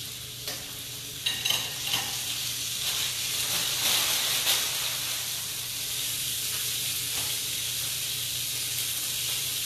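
Chicken breasts searing in a hot skillet of olive oil and sun-dried tomato oil: a steady sizzle, with a few pops and spatters in the first half. It is the sound of a properly hot pan.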